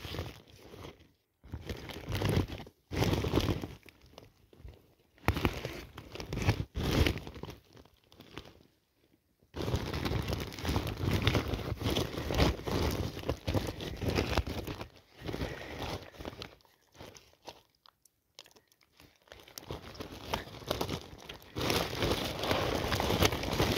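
Woven plastic sack crinkling and rustling in irregular bursts as it is handled with a catch of fish inside, broken by short pauses.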